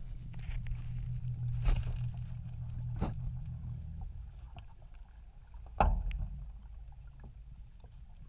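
Muffled sound heard through a submerged camera: a low rumble that fades after about four seconds, with sharp knocks about two, three and six seconds in, the first and last the loudest.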